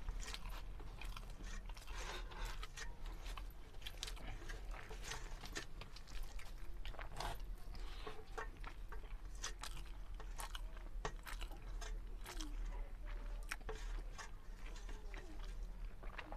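A man chewing mouthfuls of rice and black chickpea curry eaten by hand: a steady run of many short mouth clicks and smacks, over a constant low hum.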